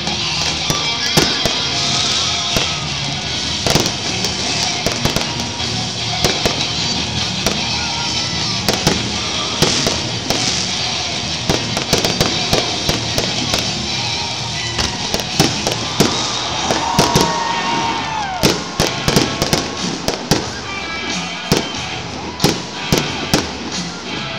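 Stadium fireworks display: a rapid string of sharp bangs and crackles from shells and comets going off, with music playing underneath. Past the middle and again at the end comes a whistle that falls in pitch.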